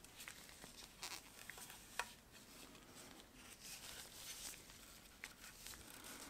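Faint handling sounds from gloved hands turning a sound card over its box's foam insert: soft rustles and small clicks, the sharpest click about two seconds in.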